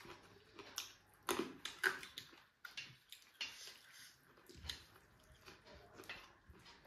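Close-up eating sounds: chewing a mouthful of rice and fried pork, with irregular wet smacks and small crunches, the loudest a little after the first second.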